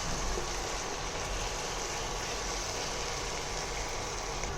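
Tomato and onion masala sizzling steadily in hot oil in a pan as it is sautéed.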